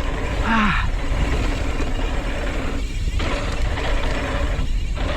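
Wind rushing over the microphone with a mountain bike's tyres and frame rattling over the trail while riding.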